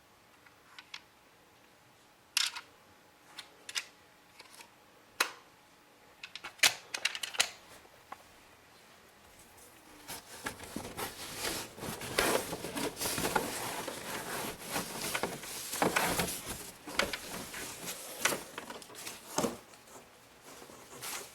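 Hands handling and fitting together parts of a stick vacuum: a few sharp separate clicks, then about ten seconds of denser rustling, scraping and clicking. The vacuum's motor is not running.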